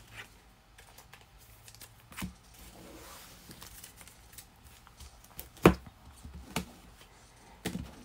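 Trading cards and clear plastic top loaders being handled on a table: a few scattered taps and clicks, the loudest about five and a half seconds in, over faint rustling.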